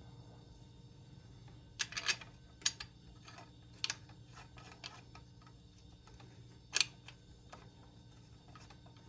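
Scattered sharp clicks and light knocks of small metal parts and hand tools being handled while fasteners are fitted on an engine, the loudest about two seconds in and again near seven seconds, over a faint steady hum.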